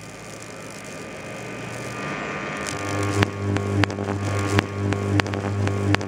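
2000-volt arc from a microwave oven transformer buzzing with a deep mains hum, faint at first, then loud from about three seconds in, broken by about five sharp snapping cracks.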